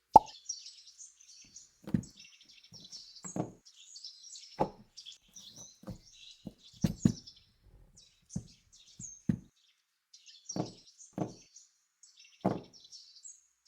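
Small birds chirping continuously, with irregular dull knocks about once a second.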